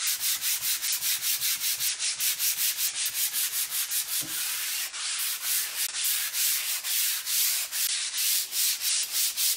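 Hand sanding pad scrubbed quickly back and forth over a factory-finished wooden kitchen cabinet, a scratchy rubbing at about four to five strokes a second: scuff sanding to knock the gloss off before painting.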